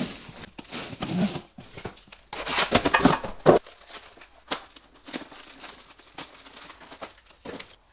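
Cardboard shipping carton being cut and torn open, with packaging rustling and crinkling; the loudest tearing is a dense stretch a couple of seconds in, followed by quieter scattered rustles and clicks.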